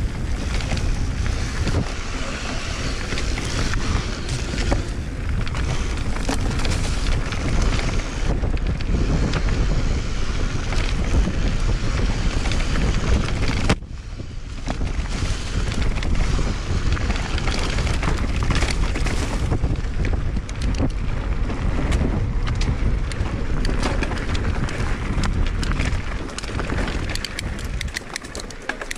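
Wind buffeting the microphone and mountain-bike tyres rumbling over a dirt trail, with many small clicks and rattles from the bike. It drops briefly about halfway through, then builds back up.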